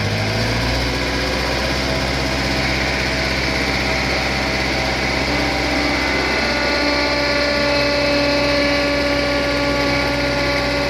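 Bobcat 825 skid steer's diesel engine running steadily, with a higher whine joining about six seconds in as a hydraulic function is worked.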